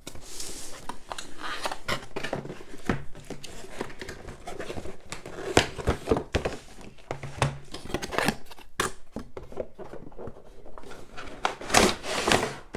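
A CPU cooler's cardboard box and plastic packaging being opened and handled: rustling and crinkling with scattered clicks and knocks.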